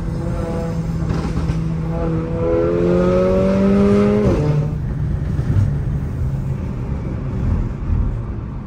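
Mercedes-AMG car engine heard inside the cabin, running steadily, then accelerating with its pitch rising until it drops sharply at an upshift a little after four seconds in. After the shift it settles into steady running under road noise.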